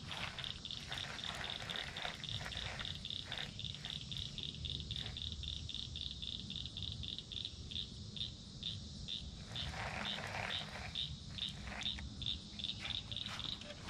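An animal calling: a steady run of short, high chirps, about three to four a second.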